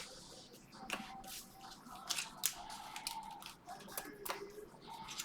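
Foil trading-card pack wrappers being torn open and cards handled, giving a run of short, sharp crinkles and crackles.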